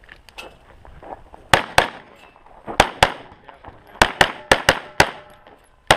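Pistol shots fired in fast pairs and short strings: about ten sharp reports, starting about a second and a half in, mostly two shots close together.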